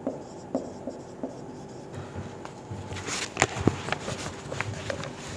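Marker writing on a whiteboard: short taps and scratchy strokes, with a louder cluster of strokes about three to four seconds in.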